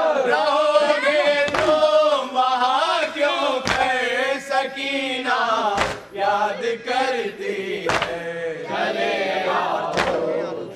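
A group of men chanting a nauha lament in unison, with a chest-beat (matam) thump about every two seconds.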